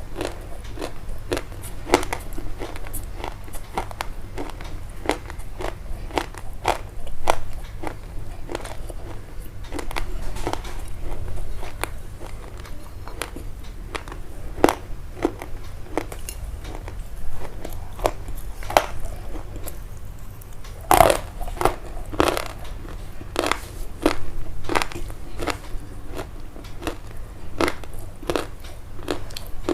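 Irregular crisp crunches and crackles, several a second, with a louder crunch about two-thirds of the way through, over a steady low hum.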